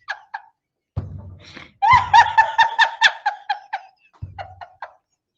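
A woman laughing hard in three bursts of quick, high-pitched pulses; the longest and loudest burst falls in the middle.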